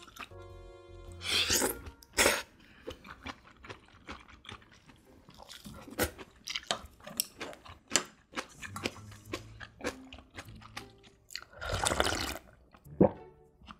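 Close-miked eating of noodles and kimchi: a slurp of noodles about a second in, then crunchy chewing with many small wet clicks, and near the end a long, loud slurp of broth drunk straight from the bowl.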